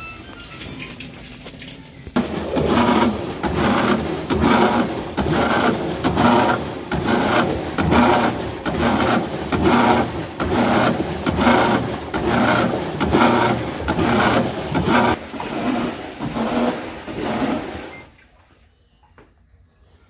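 GE top-load washing machine running with a loud, rhythmic grinding noise that pulses a little under twice a second. It starts about two seconds in and stops abruptly near the end. It is the excessive noise that the repair puts down to a faulty actuator.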